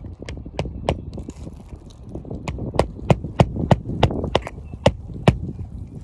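Hammer driving roofing nails back into a reinserted shingle: sharp strikes about three a second, three near the start, then after a pause of over a second a run of about ten more.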